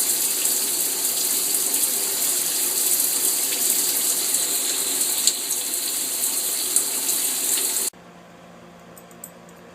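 Shower head running, spraying water into a bathtub with a steady hiss; it stops abruptly about eight seconds in.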